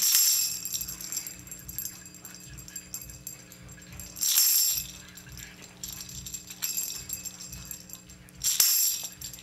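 Recorded tambourine track playing back: three tambourine hits about four seconds apart, each a bright jingling shake. Between the hits run quieter jangling, room ambience and a low steady hum, the unwanted noise to be cut out between hits.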